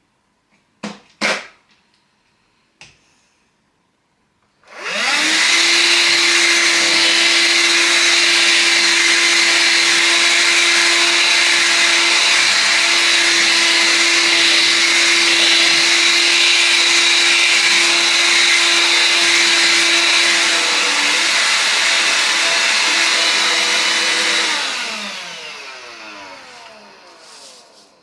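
AEG HX6-30STM cordless handheld vacuum cleaner switched on about five seconds in, running steadily with a held whine as it sucks up dirt from a wooden board, then switched off and spinning down with falling pitch near the end. A few short clicks of handling come before it starts.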